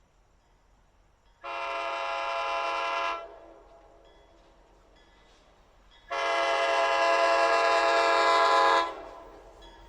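MBTA commuter rail locomotive's air horn sounding two blasts, a shorter one of under two seconds and then a longer one of nearly three seconds, each a steady chord of several tones.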